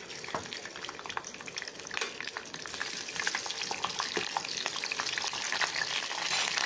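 Fresh curry leaves sizzling and crackling in hot oil in a frying pan for a tempering, stirred with a spoon. The spattering grows slowly louder as they fry.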